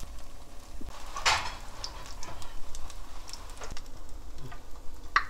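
Mung bean pancake batter sizzling and crackling in oil in a hot frying pan, with a metal spatula scraping the pan about a second in and a short click near the end.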